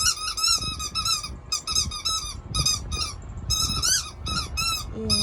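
Dog whining in a rapid string of short, high-pitched squeals, about three a second.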